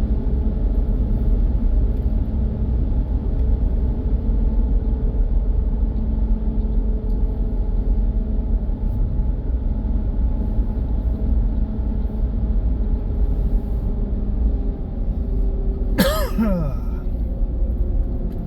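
Road noise from inside a moving pickup truck's cab: a steady low rumble of engine and tyres. A brief vocal sound, like a throat clear or sigh, near the end.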